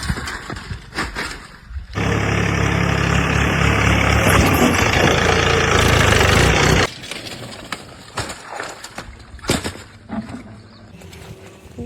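An engine running loudly and steadily for about five seconds, starting and cutting off suddenly. Scattered knocks and scrapes come before and after it.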